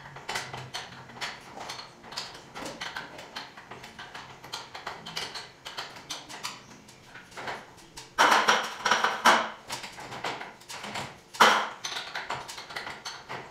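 Irregular metallic clicks and clinks of metal parts or tools being handled, with a louder, rougher clatter about eight seconds in and a sharp knock a few seconds later.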